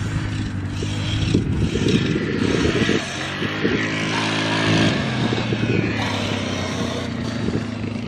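Yamaha Grizzly 700 ATV's single-cylinder four-stroke engine running as the quad is ridden, its pitch rising and falling with the throttle.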